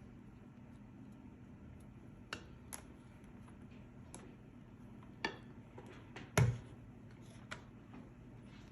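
A few scattered light clinks and taps of a kitchen utensil against a mixing bowl while batter is scooped and stirred, with one heavier knock about six and a half seconds in.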